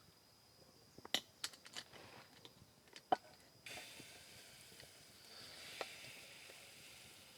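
A few light clicks and knocks, then about three and a half seconds in a steady sizzle starts suddenly: cake batter going into a pot of very hot oil over campfire embers.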